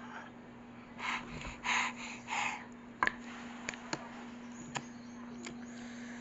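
Metal spoon and fork clinking against a bowl in a few sharp, separate clicks from about three seconds in, after three short breathy mouth sounds in the first half. A steady low hum runs underneath.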